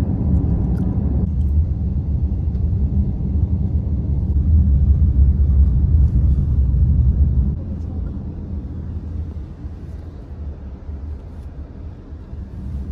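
Road and wind noise of a car driving, a loud, steady low rumble that drops to a quieter rumble about seven and a half seconds in.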